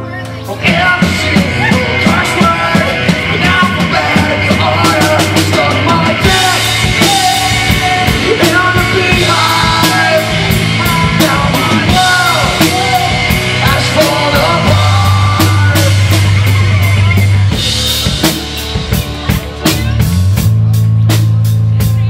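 Live rock band playing loud and without vocals: electric guitar, bass guitar and drum kit, the full band crashing in about a second in. Shortly before the end the band drops back briefly, then drums and bass come back in.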